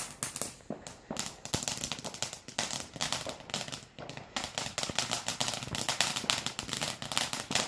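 Firework crackling: a dense, irregular run of small sharp cracks and pops, several every second.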